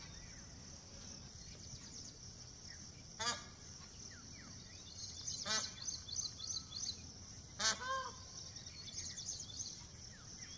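Indian peafowl giving three loud, short honking calls about two seconds apart, over a steady high-pitched buzz with small chirps from the forest.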